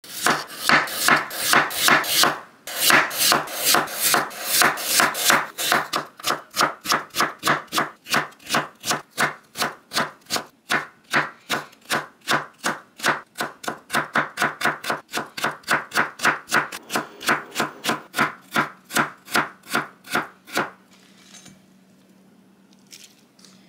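Chef's knife cutting peeled raw potato into thin matchsticks on a wooden cutting board: quick, even chops, about three a second, which stop about twenty seconds in.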